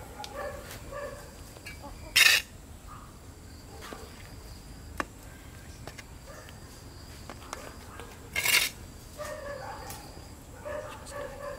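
A metal hand trowel scooping potting soil and tipping it into a plastic pot: two short, gritty scrapes about six seconds apart, with lighter soil sounds between. Short animal calls repeat in the background near the start and again near the end.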